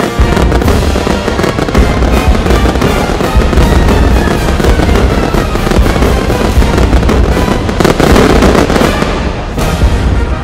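Fireworks going off in rapid succession, many bangs and crackles close together, over loud music.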